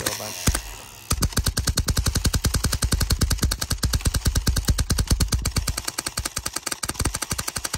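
Homemade airsoft BB marker, built as a replica of a paintball marker, firing rapid-fire: one shot about half a second in, then a near-continuous run of sharp shots at roughly ten a second.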